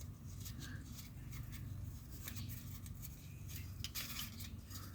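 Faint rustling and light clicks of a paper template being handled and laid against the steel bracket, over a low steady hum.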